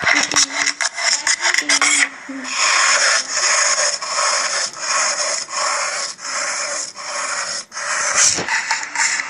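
Rough rubbing or scraping, going in repeated strokes with short breaks between them.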